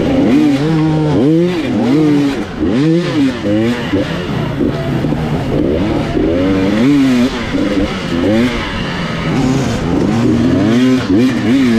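Off-road motorcycle engine revved hard over and over as it is ridden, its pitch rising and falling about once a second with repeated throttle blips.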